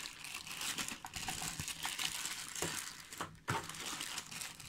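Thin clear plastic bag crinkling and rustling as it is handled, with rubber eyepiece caps and eye guards inside. There is a sharper, louder crackle about three and a half seconds in.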